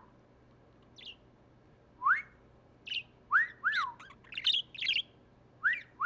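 A man whistling a few short notes that rise and fall, and a budgerigar (pet parakeet) answering with quick, high, scratchy chirps that come thickest about two-thirds of the way through.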